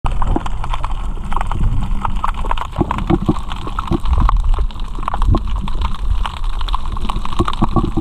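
Muffled underwater sound from a camera held below the surface: low, constant rumbling water movement with many small irregular clicks and crackles.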